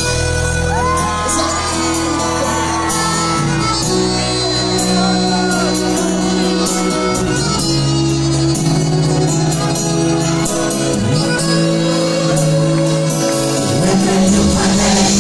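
Loud live concert music through the venue's sound system, with a steady beat and held bass notes. Shouts from the crowd and performer come in the first few seconds.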